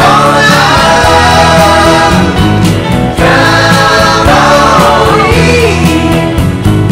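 Background music: a song sung by a choir over a steady accompaniment.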